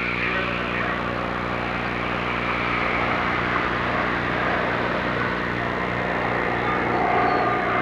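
Grumman F6F Hellcat and F-14 Tomcat flying in formation toward the listener: a steady roar of engines, with a jet whine coming in near the end as they draw closer.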